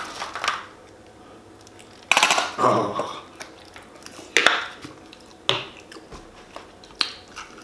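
Plastic squeeze bottle of ketchup being squeezed, the ketchup sputtering out in a burst about two seconds in, followed by a few shorter squirts and a click.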